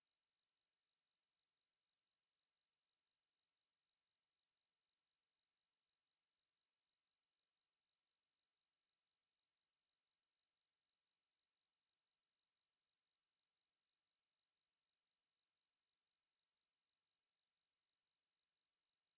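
A steady, unbroken 4681 Hz pure sine-wave test tone: a single high-pitched whistle-like pitch held at constant level.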